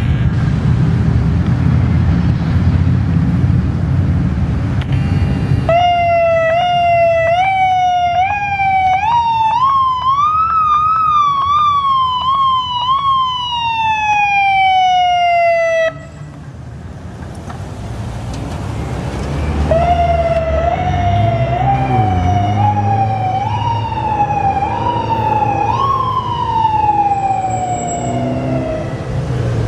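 Low engine and traffic rumble for the first few seconds. Then a police SUV's electronic siren is worked in manual mode: the tone is pushed up in short stepped rises by repeated presses and then left to wind down. This happens twice, the first cut off sharply about two-thirds of the way through.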